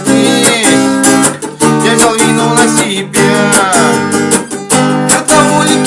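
Music: a strummed acoustic guitar with a sliding melody line over it, in the instrumental part of a song.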